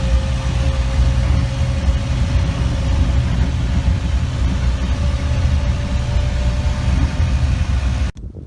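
Farm tractor engine running steadily, a deep engine sound with a faint steady whine over it. It cuts off abruptly near the end.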